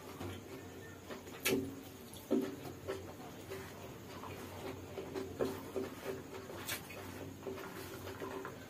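Close-up eating sounds: a man chewing with wet mouth smacks and clicks, his hand working chicken noodles on a banana leaf. The clicks come irregularly, the loudest about one and a half and two and a half seconds in.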